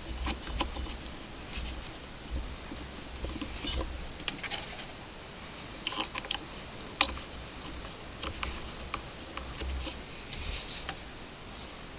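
Scattered light metal clicks and taps of bolts and tools being handled as the bolts are threaded back in by hand, over a steady low hum.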